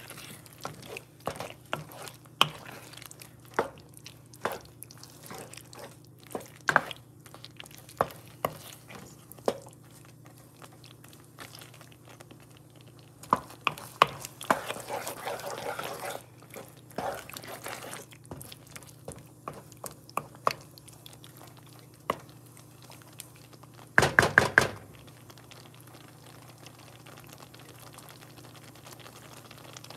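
Wooden spoon stirring penne through a thick cream sauce in a nonstick pan: wet squelching and scraping with irregular sharp knocks of the spoon against the pan, a denser stretch of stirring about halfway through, and a quick run of loud knocks near the end. After that the sauce simmers quietly.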